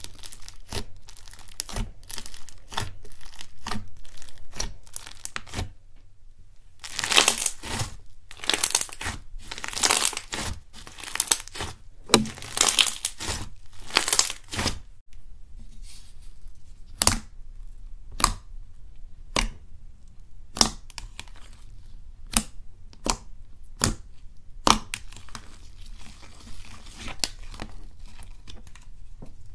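Slime being squeezed and kneaded by hand, giving dense crackling and popping. From about halfway it turns to single sharp pops, roughly one a second.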